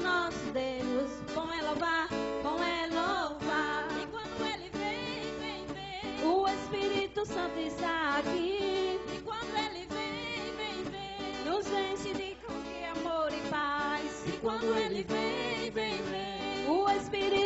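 Live worship music: women's voices singing into microphones over a strummed acoustic guitar.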